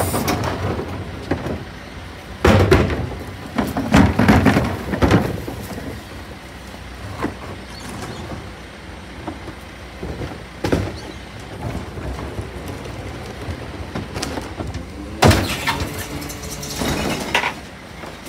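Rear-loader garbage truck's bin lifter at work over the truck's steady running engine: wheelie bins clank and bang against the lifter and hopper several times, and near the end a bin is raised and tipped into the hopper.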